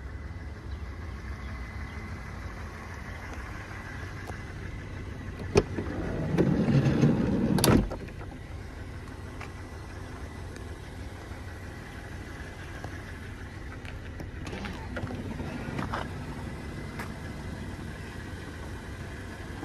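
The minivan's sliding side door: a click of the latch, then the door rolls along its track for about two seconds and stops with a sharp clunk. A softer run of rolling and another click come later.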